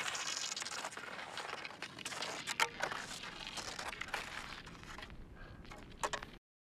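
Cross-country skis and poles crunching and scraping on snow, with scattered sharp clicks. The sound cuts off suddenly near the end.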